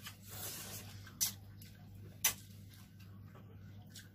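Quiet eating sounds from people picking at crab and shrimp with their hands: two short sharp clicks about a second apart and a few fainter ticks, over a low steady hum.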